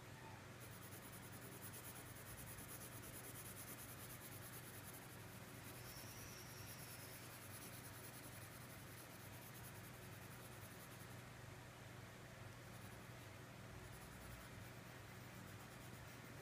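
Faint, quick scratching of a crayon shading back and forth on paper, easing off about eleven seconds in.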